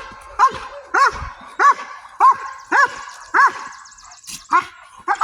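Dog barking in a steady rhythm, about nine barks spaced roughly half a second apart: a protection-training dog barking at the decoy between bites.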